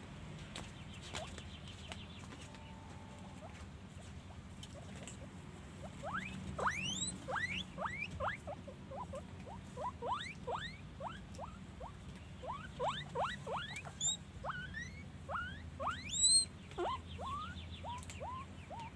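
Guinea pigs wheeking: a long run of short, rising squeaky whistles, one or two a second, starting about six seconds in and growing loudest near the end, over a low steady hum.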